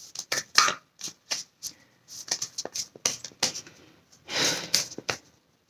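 A deck of tarot cards being shuffled by hand: a run of short papery snaps and slaps, with a longer swishing rustle about four and a half seconds in.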